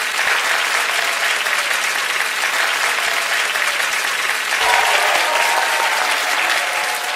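A crowd applauding steadily, a dense run of many hand claps.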